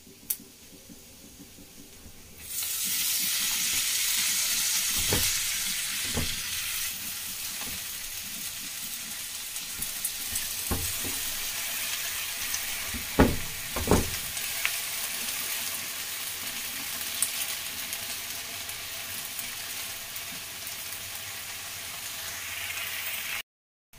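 Washed leafy greens (karmatta bhaji) hitting hot oil in a metal kadhai: a loud, steady sizzle breaks out about two and a half seconds in and holds, the water on the leaves spitting in the oil. A few dull knocks against the pan come through it, the loudest two close together past the middle.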